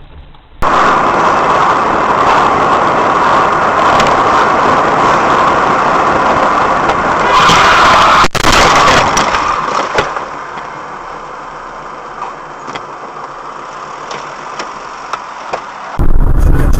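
Engine and road noise picked up by dashcam microphones in moving cars, loud and steady, easing off about ten seconds in; near the end a cut brings a louder, deeper rumble.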